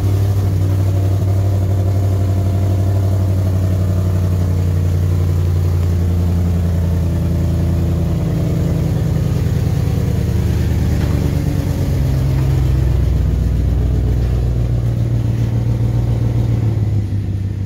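LS1 V8 idling in a Holden VN Commodore, its exhaust freshly fitted with a muffler. A loud, steady idle whose note shifts a little around the middle.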